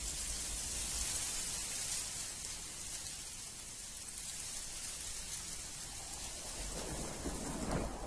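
A steady rushing hiss, brightest in the high range, with a low rumble that swells about seven seconds in.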